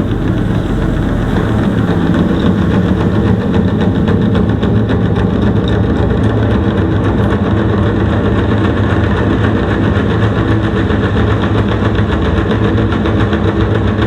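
Kondo Audio Note two-way loudspeaker, its woofer just repaired, playing a loud, steady, bass-heavy rumble from the amplifier in a listening test.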